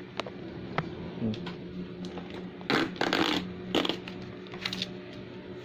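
Printed thermal sticker label paper rustling and crinkling as it is handled, after a couple of light clicks; the loudest rustling comes a little before the middle, in two or three quick bursts.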